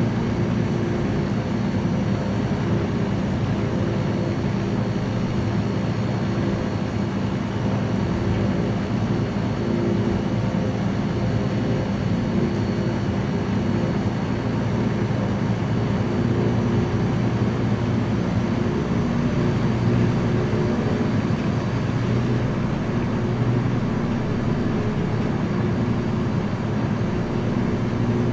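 Small light aircraft's engine and propeller running steadily in flight, a constant low drone with a hum and its overtones.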